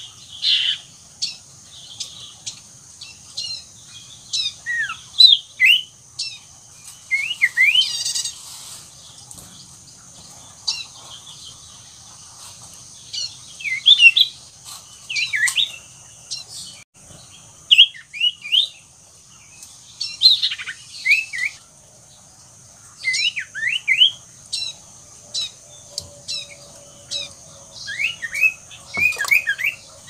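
Caged common iora singing busily, in full song: quick bursts of short, sweeping chirps and whistles, one after another, over a steady high-pitched hiss.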